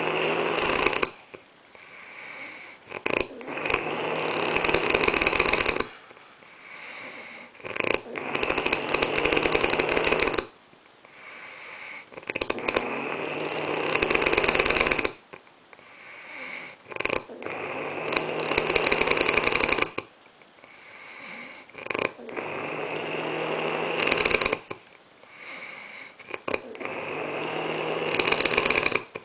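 A person snoring heavily in deep sleep: a loud, rattling snore about every four to five seconds, with quieter breaths between.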